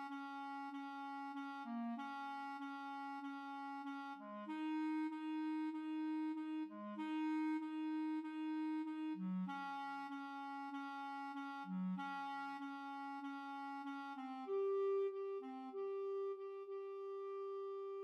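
A single B-flat clarinet playing the second-clarinet accompaniment part alone. It plays sustained notes broken by short lower notes, then moves up to a long held note about fourteen seconds in.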